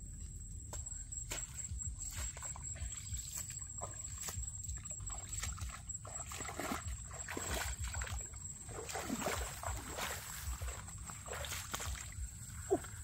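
Feet wading through shallow muddy water: irregular splashes and sloshing, getting busier about halfway through.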